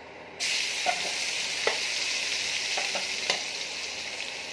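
Chopped garlic hitting hot oil in a pan and sizzling loudly from about half a second in, the sizzle slowly easing off, with a few clicks of a slotted spatula against the pan as it is stirred.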